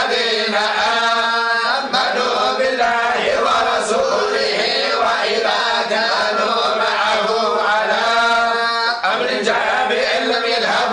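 A group of voices reciting the Quran together in unison in the Moroccan collective (hizb) style: a continuous chant with long held notes.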